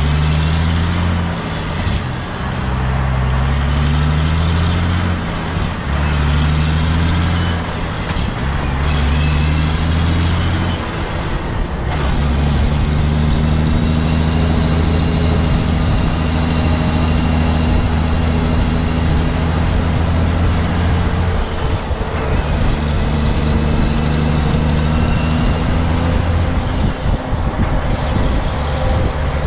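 Semi-truck's diesel engine pulling hard through the gears: the revs climb and drop back with each of several upshifts, then settle into a steady run at cruising speed.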